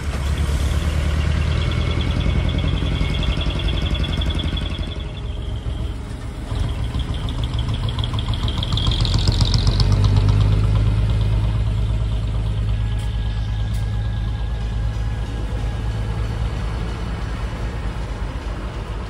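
Diesel truck engines running as decorated and working trucks drive slowly past one after another, with a high whine that rises as one truck pulls by about nine seconds in.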